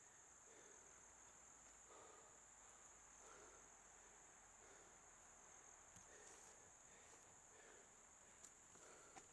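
Near silence with a faint, steady high-pitched chorus of crickets; a few light ticks in the second half.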